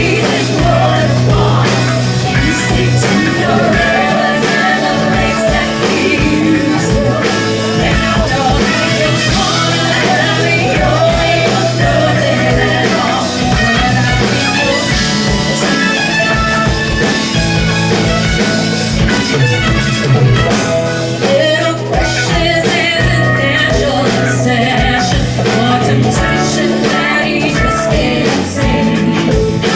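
Rock song with a singing voice, guitar and drum kit.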